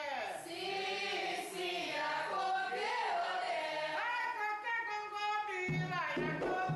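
A group of voices singing a religious chant, at first without accompaniment, the notes long and gliding. Near the end a low, regular beat joins the singing.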